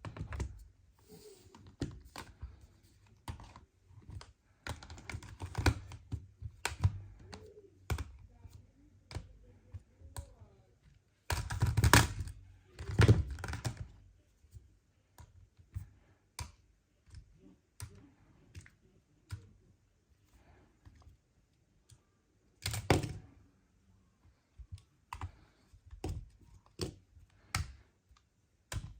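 Irregular clicks and taps, several a second, like keys or hard objects being tapped and handled on a surface. Louder clattering knocks come a little before halfway and again about four-fifths of the way through.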